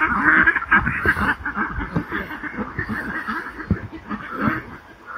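Ducks quacking, many at once in a rapid chattering chorus.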